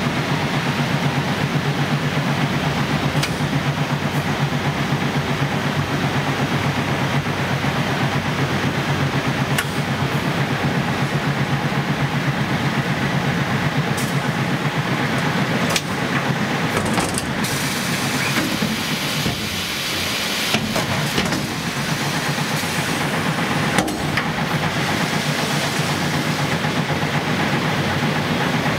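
Twin-head filling machine with suction nozzles running steadily: a continuous mechanical drone with a fast, fine low pulsing, broken by a few sharp clicks and easing a little about two-thirds of the way through.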